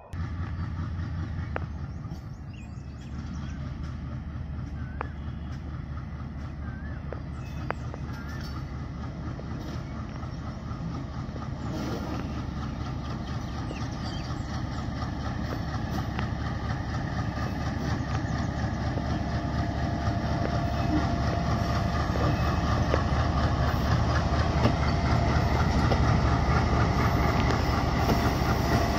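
A broad-gauge diesel-electric locomotive running with its train, a steady low rumble growing gradually louder as it approaches.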